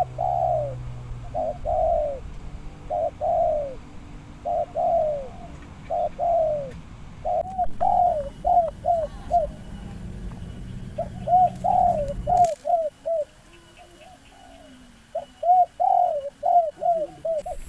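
Spotted doves cooing: repeated phrases of short, arched notes, some phrases quicker and more clipped than others. A low rumble runs underneath and stops abruptly about twelve seconds in.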